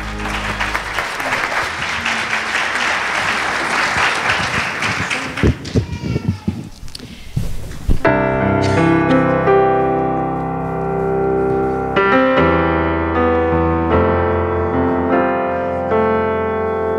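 Congregation applauding for about five seconds, followed by a few scattered thumps; then, about eight seconds in, a piano starts playing slow sustained chords.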